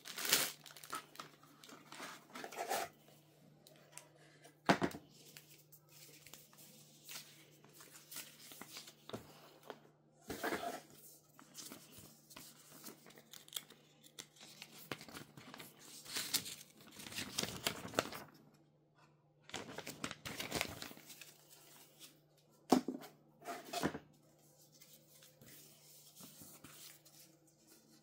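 Packaging being handled and torn open in an unboxing: intermittent tearing and crinkling of packing material, with a few sharp knocks.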